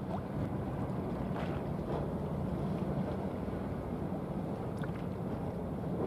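Steady low drone of a ship's diesel engine heard across the water, over a light hiss of wind and water.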